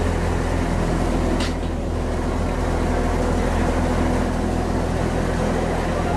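Tractor-driven wheat thresher running steadily under load, its drum and blower droning together with the Fiat 640 tractor's engine that powers it.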